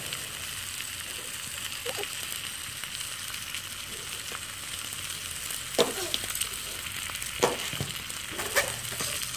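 Ribeye steak sizzling steadily as it sears in a hot cast iron skillet, a constant frying hiss. A few brief short sounds cut in over it in the second half.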